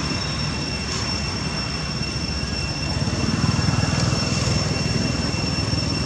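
Steady outdoor background rumble, a little louder for a couple of seconds near the middle, with two thin steady high-pitched tones above it.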